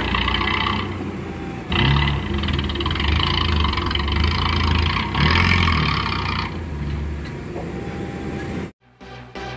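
Hitachi excavator's diesel engine running under load while its hydraulics work the boom and log grapple, a higher hiss rising over the engine three times as the arm moves. Near the end the sound cuts out and electronic music with a steady beat starts.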